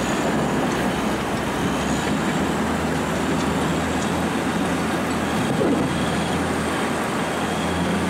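Caterpillar crawler bulldozer working, its diesel engine running steadily with a low hum under a broad rushing noise.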